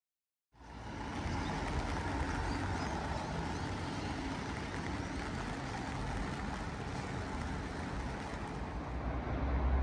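Street ambience of road traffic: a steady wash of traffic noise that starts abruptly about half a second in, with a deeper rumble swelling near the end.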